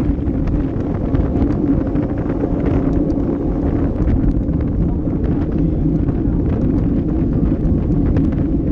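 Wind rushing over the microphone of a handlebar-mounted camera on a road bike at racing speed, with the tyres rumbling over brick paving. Faint scattered clicks and ticks run through it.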